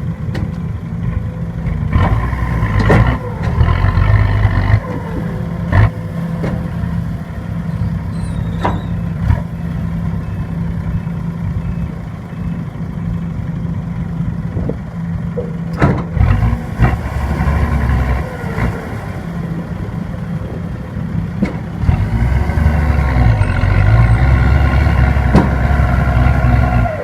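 Sumitomo SH210F excavator's diesel engine working under load while digging and loading soil, swelling louder about three seconds in and again for the last few seconds, with sharp knocks now and then.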